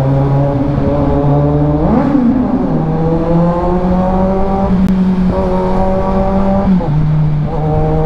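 2022 Kawasaki Z900's 948cc inline-four engine, fitted with an aftermarket Orion exhaust, pulling under acceleration while riding. Its pitch climbs steadily, then drops and climbs again a few times as the rider moves through the gears.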